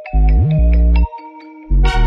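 Background electronic music: a loud, heavy bass note cutting in and out under bell-like plucked tones, with a bright synth chord coming in near the end.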